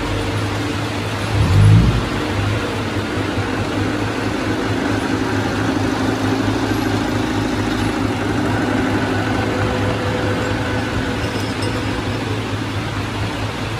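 Diesel engine of heavy earthmoving machinery running steadily, with a brief, louder low surge about one and a half seconds in.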